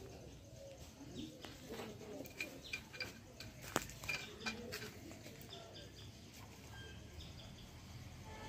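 Faint, scattered metal clicks and light knocks from hand tools on a chain-link fencing machine's die mount as its nuts are tightened, with birds calling now and then in the background.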